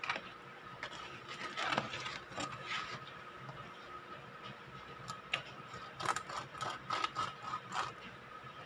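Serrated bread knife sawing back and forth through the crust of an oat and flaxseed sourdough loaf: a run of scratchy rasping strokes, in two spells.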